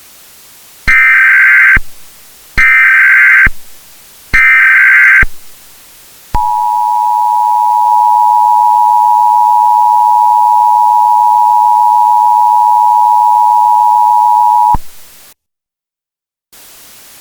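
Emergency Alert System tones: three short bursts of the SAME header's screeching data tones, each just under a second, then the EAS two-tone attention signal held steady for about eight seconds before cutting off suddenly, followed by faint hiss.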